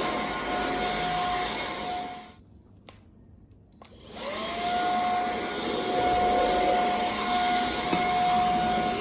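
Xiaomi Mi Vacuum Cleaner Light (MJWXCQ03DY) cordless stick vacuum running with a steady whine. It is switched off a little over two seconds in and switched back on about a second and a half later, the motor's whine rising as it spins up and then holding steady.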